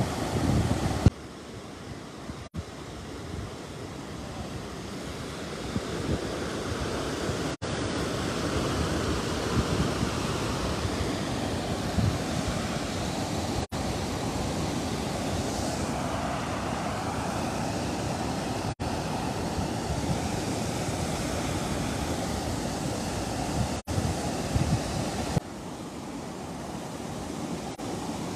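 Muddy floodwater from heavy rain rushing and churning down an eroded channel past a concrete outlet, a steady noise broken by a few brief dropouts, with wind buffeting the microphone.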